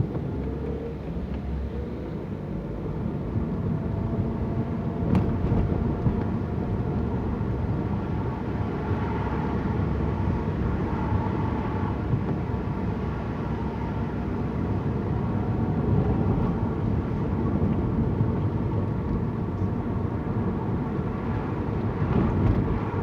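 Car driving, heard from inside the cabin: steady engine and tyre noise, with the engine note climbing slightly in the first few seconds.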